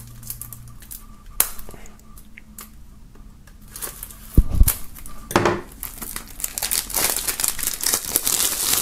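Shrink-wrap foil on a CD jewel case being slit with a blade, with a few light clicks at first and a dull thump about halfway. In the second half the plastic film crinkles and tears steadily as it is pulled off the case.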